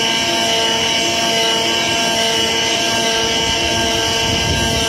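CNC flatbed cutter working a sheet of corrugated cardboard: a loud, steady mechanical whine, with the tool head's motors humming on and off as the head moves and cuts.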